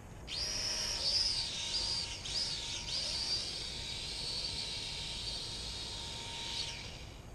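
Sharper Image toy car drone's small propeller motors whining at a high pitch as they spin up, the pitch dipping and rising with the throttle, then cutting off near the end.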